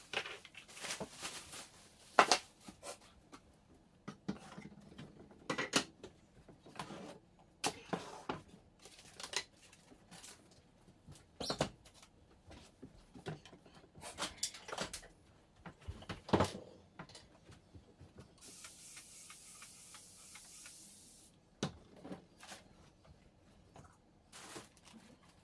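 Household items being handled on a granite kitchen counter: scattered light knocks, clinks and rustles as things are picked up, set down and dropped into a plastic trash bag. A steady hiss runs for about two seconds late on.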